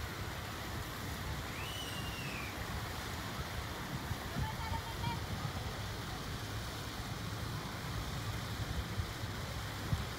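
Steady outdoor ambience dominated by wind rumbling on the microphone, with a faint high call that rises and falls about two seconds in.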